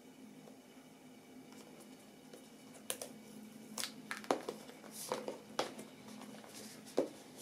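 Hands working at a small cardboard iPhone 13 box, peeling off its paper seal stickers. Quiet for about three seconds, then a run of sharp clicks and short scratchy taps as fingernails pick at the tabs and the box knocks on the table.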